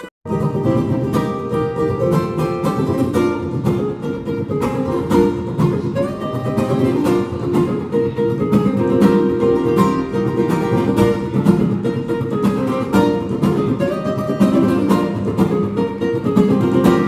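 Acoustic plucked string instruments playing a fast, busy piece with many quick notes, starting abruptly after a brief gap.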